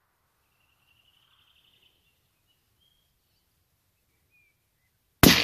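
Faint bird chirps, then near the end a single shot from a Blaser R8 rifle in 6.5 Creedmoor: one sharp, very loud crack with a tail that fades over about a second.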